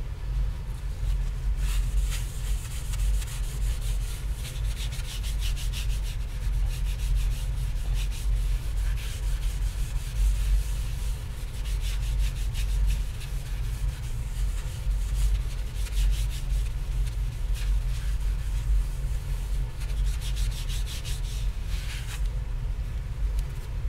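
Rapid back-and-forth rubbing strokes on a copper plate, polishing its surface. The strokes come in spells, starting about two seconds in and stopping shortly before the end, over a steady low hum.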